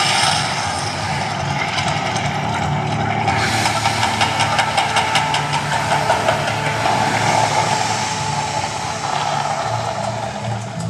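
The Mirage's volcano show erupting: a loud, steady deep rumble, joined about three and a half seconds in by a dense, rapid rattle of percussive clicks.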